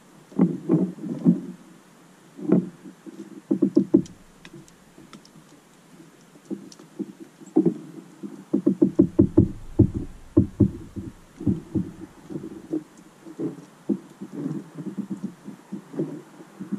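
A tit at a plastic tube seed feeder, its beak tapping and knocking on the feeder and perch as it pecks at seed. The taps come in clusters, in a fast run about halfway through.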